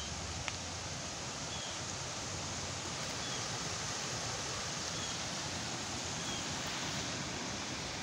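Shallow water rushing steadily across a concrete ford and spilling in small cascades between its concrete blocks: a steady hiss of running water. A single brief click about half a second in, and a few faint, short high chirps.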